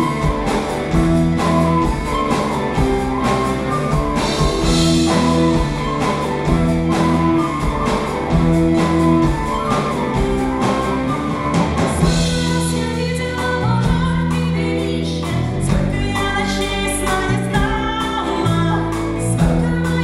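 Live folk-rock band playing a song, with drums, bass and electric guitar under a woman singing. The music is loud and steady with an even beat, and the sound of a large hall around it.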